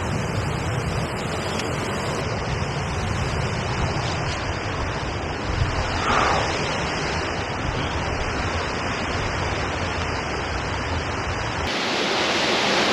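Steady rushing of a nearby waterfall, with a low rumble of wind on the microphone. The rumble stops abruptly near the end, leaving a brighter water hiss.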